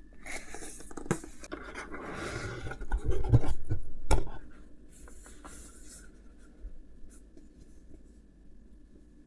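Keyboard packaging being handled: cardboard and wrapping scraping and rustling, with one sharp knock about four seconds in, then quieter rustling.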